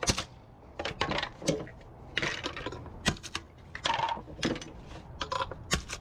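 Small pieces of scrap metal clinking and clattering as they are handled, a dozen or so irregular sharp knocks, some ringing briefly.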